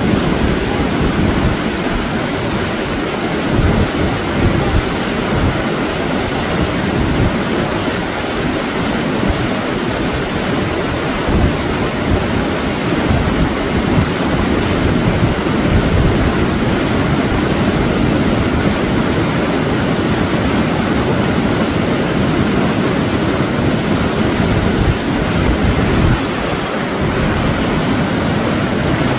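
Whitewater rapids rushing steadily, with wind buffeting the microphone in irregular low rumbles.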